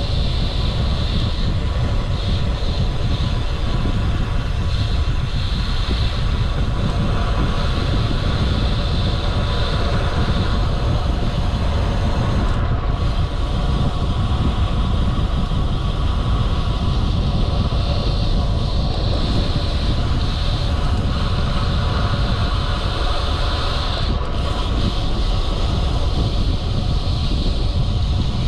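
Steady wind rumble on the microphone of a camera carried on a road bike moving at speed.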